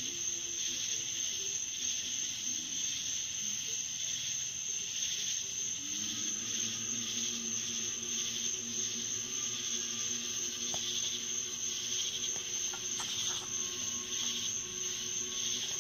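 Night insects chirping in a steady, high, slightly pulsing drone, with a low steady hum beneath that shifts to a new pitch about six seconds in, and a few faint clicks near the end.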